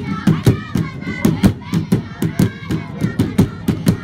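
Large Zulu drums beaten with sticks in a steady, fast rhythm of about four beats a second, with a group of voices singing and chanting along.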